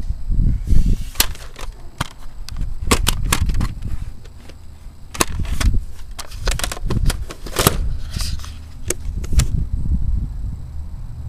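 Plastic CD cases and a disc handled close to the camera: about fifteen irregular sharp clicks and clacks, stopping about a second and a half before the end, over low rumbling handling noise.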